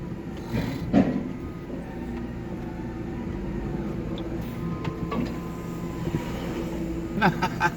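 A vehicle engine running at a steady idle, with a knock about a second in.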